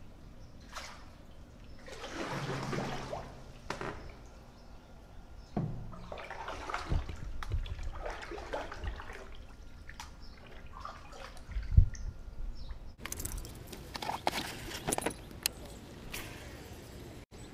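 Canoe paddle strokes swishing and splashing through the water, with a few low knocks against the canoe hull and one sharp, loud knock.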